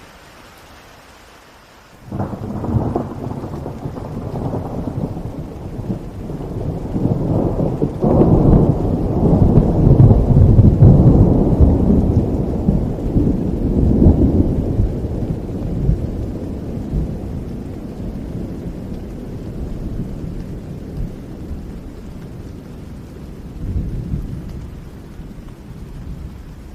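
Steady rain with a long roll of thunder: it breaks in suddenly about two seconds in, swells to its loudest around the middle, and slowly dies away to the rain again near the end.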